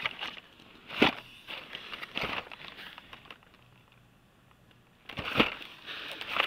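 Plastic blister packs on Hot Wheels cards clicking and rustling against one another as the cards are flipped through in a cardboard box. A sharp click comes about a second in and another about two seconds in, then a quiet stretch, then a louder flurry of clicks and rustling near the end.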